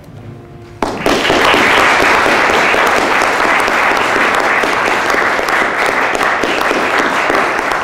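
Small audience applauding: the clapping breaks out suddenly about a second in and goes on steadily.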